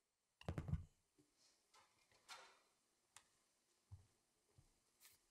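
Faint handling noise as a clarinet is set down on its floor stand: a short cluster of knocks about half a second in, then scattered soft footsteps and small clicks as the player gets up and walks a few steps.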